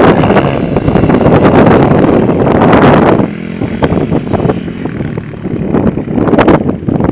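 Heavy wind buffeting on the microphone, easing about three seconds in, over the distant hum of a Kayo 140cc pit bike's single-cylinder four-stroke engine as it is ridden.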